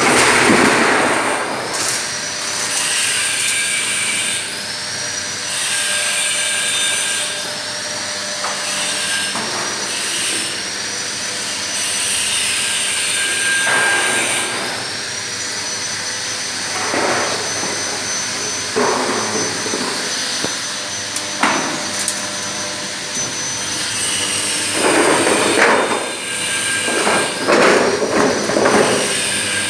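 Roofing-sheet roll forming machine running, a steady mechanical noise with high whining tones that rise, hold and fall again several times. Louder bursts of metal clatter come in the middle and several times near the end.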